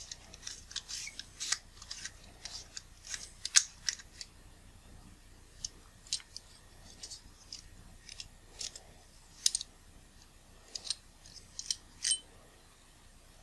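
Handling noise from a camera lens being worked by hand: scattered small clicks and light scrapes as a rubber cone tool is twisted on the front of an Olympus Zuiko 100mm f/2.8 lens to unscrew its front ring, and the lens is turned in the hands. The clicks come at irregular intervals, a few of them sharper than the rest.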